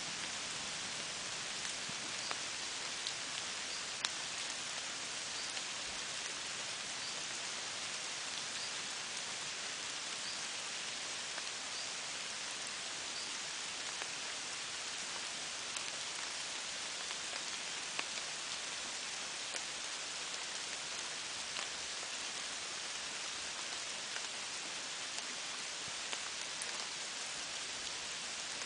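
Steady rain falling, an even hiss with scattered sharp drop ticks. Faint short high notes repeat about once a second through the first half.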